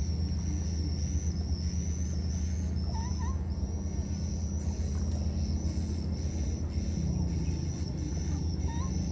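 Baby monkeys giving short rising squeaks, once about three seconds in and again near the end. Under them run a steady high-pitched whine and a low steady hum.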